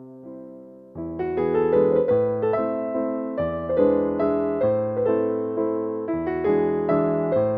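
Background piano music: a few soft, slowly fading chords, then about a second in a fuller passage with bass notes and a quicker melody.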